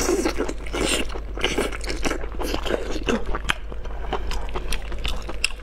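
Close-miked mouth sounds of biting and chewing soy-braised pork intestines: a dense, irregular run of short clicks and smacks with no break.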